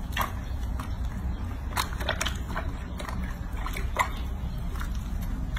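Soapy water sloshing in a bathroom sink as hands scrub a baby monkey's legs and feet, with scattered short splashes and squelches.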